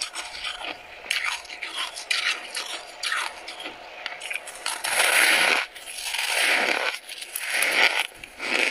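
Close-miked chewing of freezer frost: quick small crunches as she bites into a packed lump, then three longer, louder crunching chews of about a second each in the second half.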